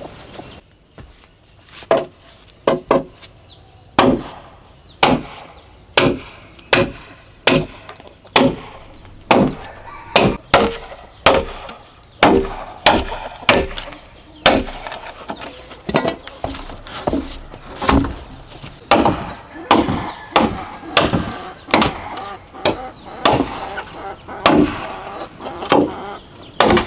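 Machete chopping into a green bamboo pole, cutting a notch in it: a steady run of sharp, hollow-ringing strikes, about one to two a second.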